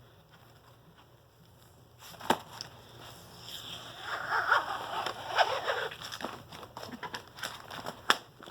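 Notebook being handled while a sticker is peeled off its cover: scratchy rustling with a sharp click about two seconds in and another near the end.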